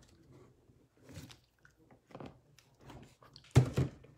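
Scattered light clicks and rustles of things being handled close to the microphone, with a louder double knock about three and a half seconds in.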